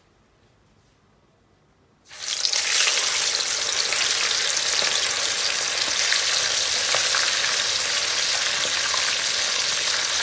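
Near silence, then about two seconds in a loud, steady sizzle starts suddenly: a floured whole dorado fish deep-frying in hot oil.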